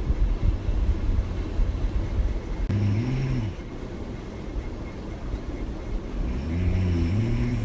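A woman snoring: two pitched snores about three and a half seconds apart, each about a second long, with a low rough rumble in between.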